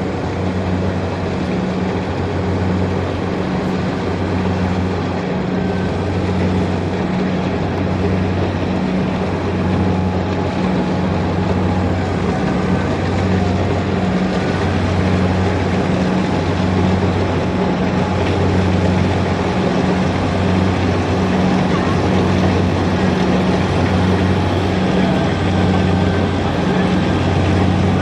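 Diesel farm tractor engine running under load while driving through a flooded paddy, its drone pulsing evenly every second or so, with muddy water splashing around the wheels.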